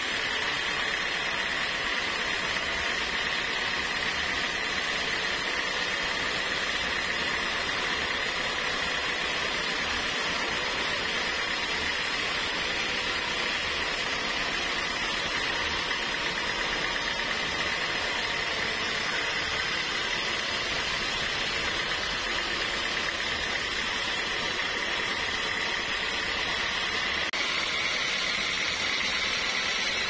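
Band sawmill blade cutting lengthwise through a large teak log, running steadily with a constant high whine over the noise of the cut. The whine shifts slightly higher near the end.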